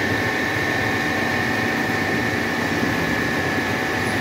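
Milling machine running with its end mill cutting a bolt head held in a chuck, under a stream of coolant: a steady mechanical hum with a high steady whine.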